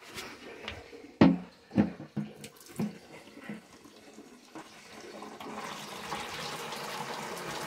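A few knocks as a plastic jerrycan is set under a brass tap, then water from the tap running into the can, the rush growing steadily louder from about five seconds in.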